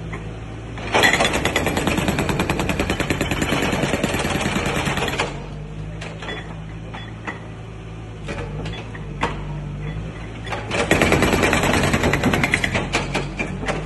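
HMB750 hydraulic breaker on a Terex excavator hammering concrete pavement in two bursts of rapid blows, the first about four seconds long and the second about two and a half. Between the bursts the excavator's engine runs steadily, with a few single knocks.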